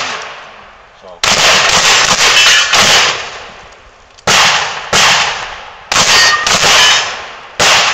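Shotgun fired rapidly at steel targets: a quick cluster of shots in the first few seconds, a short pause, then more shots about half a second to a second apart, each with a short echo trailing off.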